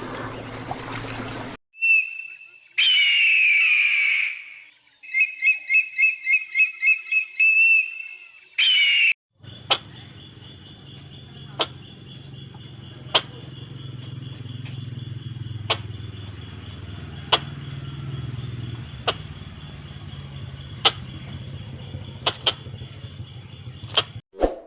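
A sequence of animal calls. First come high chirping calls with a quick run of repeated notes. Then comes a steady hum with a single sharp high chirp about every second and a half.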